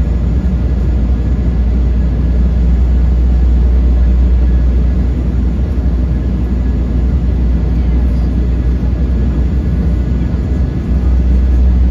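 Steady cabin noise of an Embraer E195LR airliner descending on approach: engine and airflow noise with a strong deep hum.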